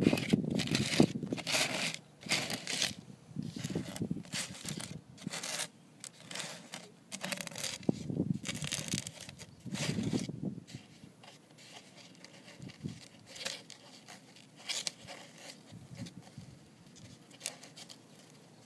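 Irregular scraping and crinkling rustles from a plastic plate being handled, in short bursts, busier in the first half and fainter and sparser later.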